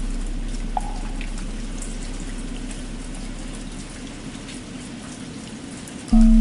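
Steady rain falling, with the deep hum of a struck bell slowly fading away. A single short wooden-fish knock sounds about a second in, and the bell is struck again just before the end, starting a new loud, ringing tone.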